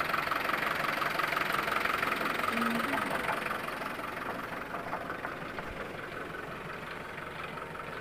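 Truck engine idling with a fast, even clatter, growing fainter about halfway through.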